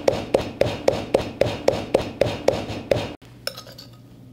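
Wooden pestle pounding a chili, garlic and galangal paste in a clay Thai mortar, steady strikes about four a second, stopping suddenly a little over three seconds in; a few faint clinks follow.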